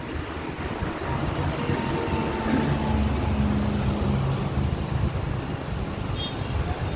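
A motor vehicle's engine rumbling, low and steady, swelling a little in the middle as it passes.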